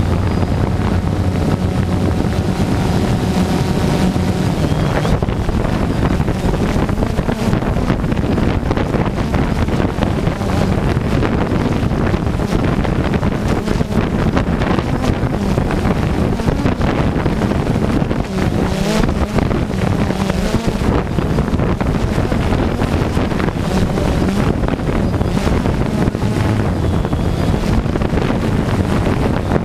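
DJI Phantom 2 quadcopter's four motors and propellers buzzing steadily in flight, picked up by the GoPro mounted under it, with wind rushing over the microphone.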